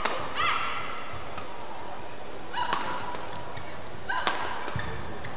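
Badminton rally: sharp racket hits on the shuttlecock at irregular intervals, with shoes squeaking briefly on the court mat as players push off.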